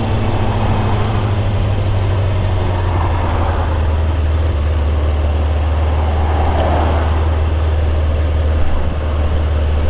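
Kawasaki Ninja 636's inline-four engine running steadily as the motorcycle rides along, with wind rushing over the microphone. The engine note drops slightly about four seconds in.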